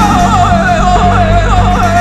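Male Persian classical singer holding a long melismatic line full of rapid, wavering, yodel-like trills (tahrir) over sustained low double bass and piano notes.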